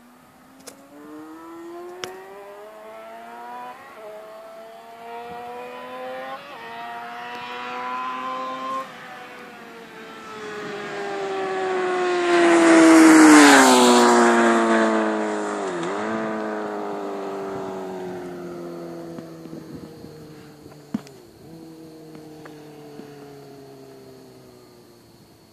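Suzuki GSX-R 600's inline-four engine accelerating hard through several upshifts as the motorcycle approaches, passing by about halfway through with a drop in pitch, then fading away into the distance.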